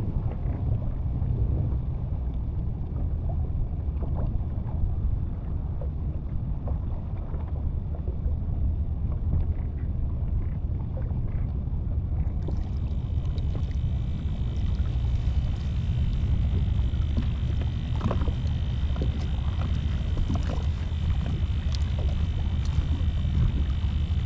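Steady wind rumble on the microphone, with water lapping against a kayak hull and occasional light knocks. About halfway through a higher, steady hiss joins in.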